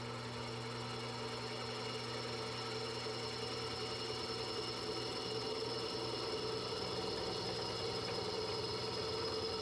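Drill press running steadily as its twist bit cuts a bolt hole through a cast iron brake rotor, drilled dry without lubricant.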